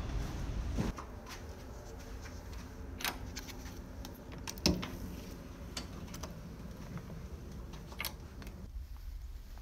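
A steady low hum of the ferry's engines under a few sharp clicks and knocks, the loudest about halfway, from a cabin door's electronic card lock and latch being worked.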